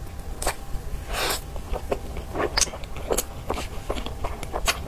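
Close-miked eating: a bite into a soft cream-filled bun, then chewing with irregular short wet clicks and smacks.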